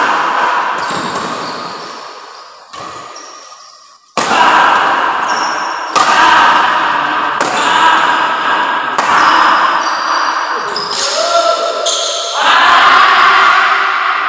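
Badminton rackets striking the shuttlecock back and forth in a doubles rally: a series of sharp hits, about one every second and a half, each ringing on in the echoing hall.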